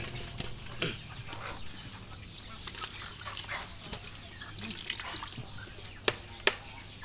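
Wet splashing and clicking of a hand stirring through a heap of small fish in shallow water in a metal basin, with two sharp, loud clicks near the end.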